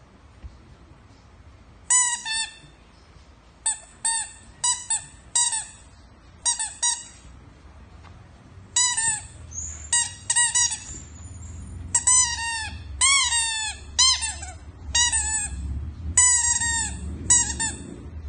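Pink rubber squeaky toy ball squeaking in quick clusters of two to four as a puppy bites and chews it, each squeak dropping in pitch. The squeaks come more often in the second half.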